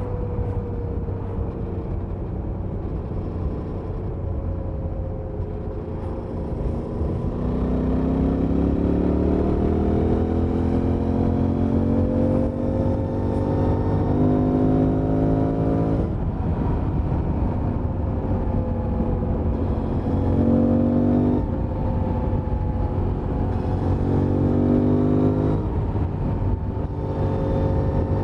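Suzuki V-Strom 800DE's stock-exhaust 776 cc parallel-twin engine, heard from the rider's seat with wind noise. It cruises steadily at first. From about seven seconds in it pulls hard, rising in pitch for several seconds. Twice more it climbs again and drops back suddenly.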